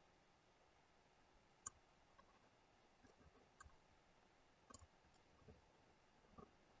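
Faint, scattered clicks of a computer mouse over near-silent room tone, about half a dozen irregularly spaced, the sharpest a little under two seconds in.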